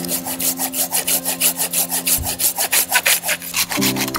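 Hand saw cutting through a split piece of firewood with quick, even rasping strokes, about seven a second.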